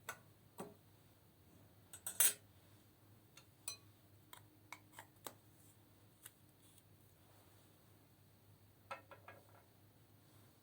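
Sparse sharp clicks and clinks of tools and makeup being handled while eyeshadow is broken up for mixing into slime. The loudest come in a short cluster about two seconds in, with a quick run of clicks near the end.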